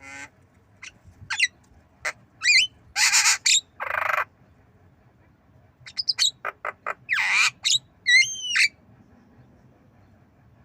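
Javan myna calling: a string of sharp clicks, harsh rasping squawks and short warbled whistles. The loudest rasps come about three seconds in and again around seven seconds, and they fit the bird learning to mimic a cough.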